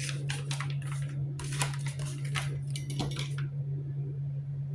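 Sections of a mop's extension pole being handled and fitted together: a string of light clicks and taps for about three seconds, then only a few, over a steady low hum.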